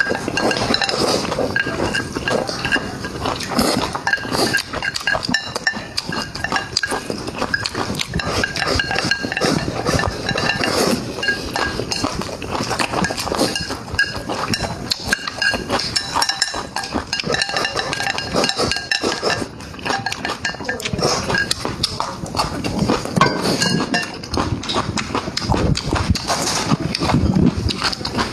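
Close-up chewing and lip-smacking of someone eating with their mouth near the microphone, a steady run of small wet clicks, with now and then a clink of dishes or utensils.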